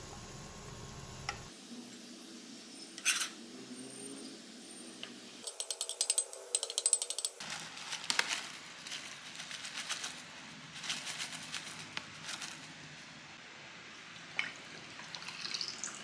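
Cooking sounds: scattered clinks and scrapes of utensils against a white nonstick frying pan and a ceramic bowl, with a quick run of rapid taps about six seconds in.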